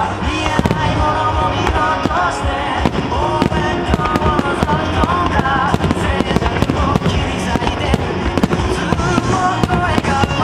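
Fireworks going off in quick succession, many sharp bangs and crackles, over music with a singing voice played for a starmine fireworks display.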